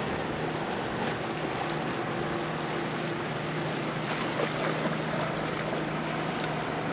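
Steady wind and water noise on open water from a boat, with a faint, steady low hum.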